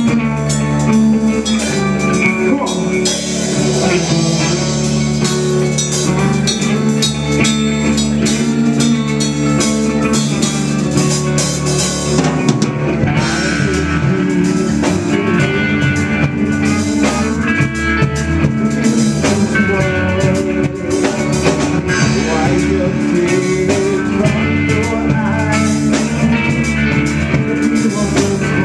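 Live rock band playing loudly and steadily: two electric guitars over a drum kit.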